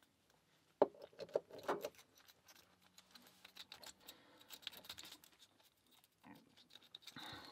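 Rake pick scraping and clicking over the pins of a Stabilit padlock under tension, a run of faint quick clicks with a few louder clicks about a second in.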